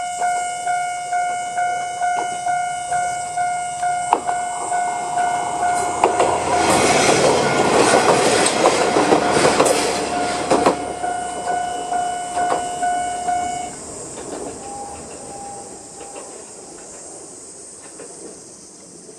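A Japanese level-crossing warning bell rings at about two strikes a second while a two-car diesel railcar train, a KiHa 40 coupled to a KiHa 200, passes over the crossing. The train's wheels clatter over the rail joints, loudest from about six to eleven seconds in. The bell stops about fourteen seconds in.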